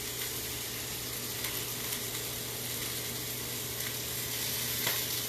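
Stir-fry sizzling steadily in hot oil in a pan, with a few faint clicks.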